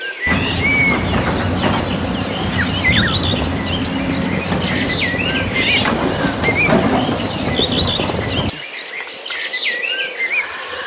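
Small birds chirping and tweeting repeatedly. Over them a loud, rough rumbling noise starts suddenly and stops abruptly about eight and a half seconds in.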